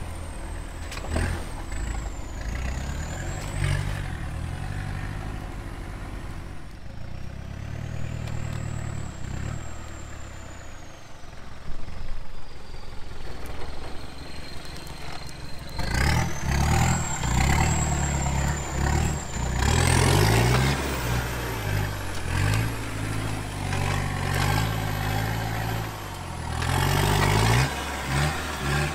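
Short-wheelbase first-generation Mitsubishi Pajero's engine driving off-road over rough ground, revs rising and falling. From about halfway in it is louder and rougher as the vehicle pushes through brush.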